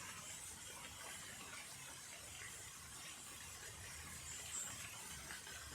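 Steady, faint hiss of rain falling.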